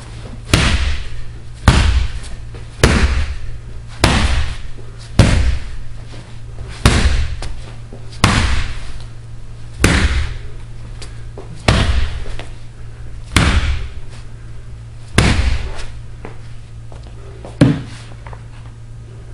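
Wooden bat striking a hanging heavy punching bag: about a dozen hard whacks, one every second or two, coming further apart toward the end. A steady low hum runs underneath.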